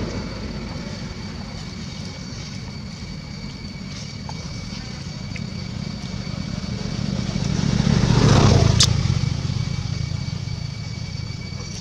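A motor vehicle's engine passing by: a steady low rumble that swells to its loudest about eight and a half seconds in, then fades away, with one sharp click near the peak.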